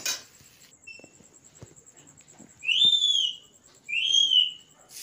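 Two loud whistled calls about a second apart, each lasting well under a second and sweeping up and then down in pitch.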